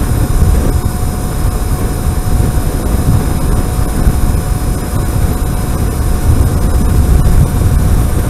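Wind rumbling on the microphone and road noise from an electric-converted 1975 Kawasaki KZ400 cruising at a steady speed, with a thin steady whine underneath. There is no engine note, since the bike runs on an electric motor.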